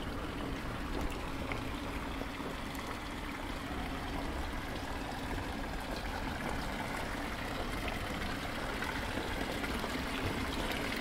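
Water from a stone fountain's spout splashing into its basin, a steady trickle that grows a little louder near the end.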